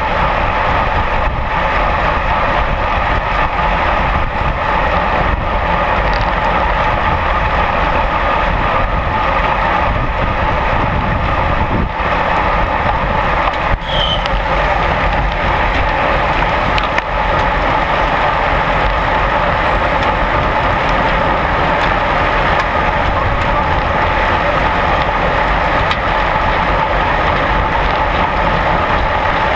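Steady wind rush on a bicycle-mounted action camera moving at race speed in a cycling peloton, mixed with tyre and road noise from the bikes.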